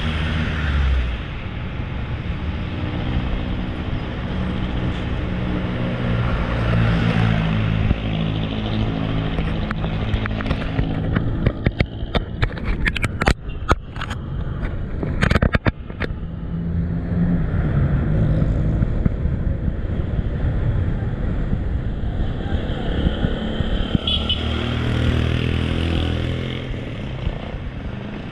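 Road traffic: car and motorcycle engines running close by, with a cluster of sharp rattles and knocks about halfway through.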